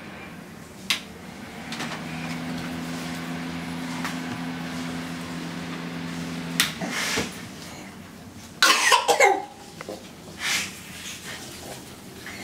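Electric fan heater running with a steady low hum, which stops about halfway through; a few light knocks, then a short loud burst of sound about three-quarters of the way in.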